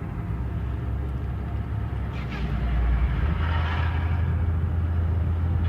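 A motor vehicle's engine running with a steady deep rumble that grows louder about three seconds in.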